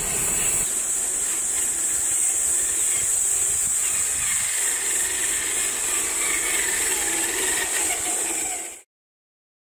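Traxxas TRX-4 RC crawler's electric motor and gears whining, rising and falling in pitch as it crawls over rock, under a steady high-pitched hiss. The sound cuts off suddenly near the end.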